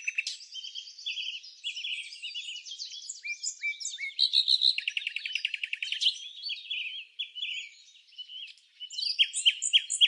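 Several songbirds singing and calling at once: a dense mix of fast trills, chirps and short whistled notes, with a brief lull about eight seconds in before the singing picks up again.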